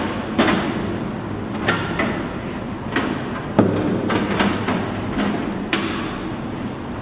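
Sharp knocks and clicks, about seven spread irregularly, as the cover of a desktop computer case is fitted back onto the case.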